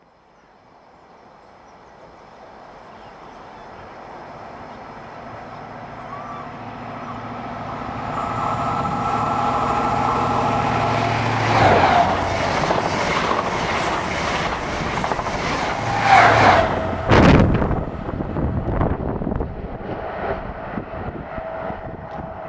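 A CrossCountry diesel express passenger train approaches at speed, growing steadily louder. It rushes past close by with loud peaks, its engine note dropping sharply in pitch as it goes by. It then fades away with a rattle of wheels over the rail joints.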